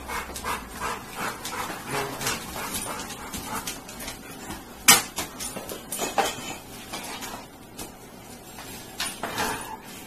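Pit bull panting, in a quick run of short breaths, with one sharp knock about five seconds in.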